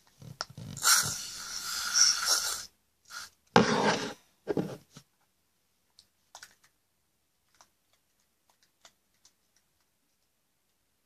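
Sticky homemade slime being mixed and squished by hand in a plastic tub: about two seconds of wet scraping and squelching, a few shorter bursts a little later, then only faint scattered clicks.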